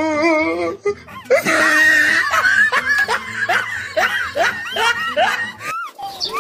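High-pitched laughter, typical of a comic laughing sound effect: a wavering held note in the first second, then a quick run of short squeaky laughs until just before the end.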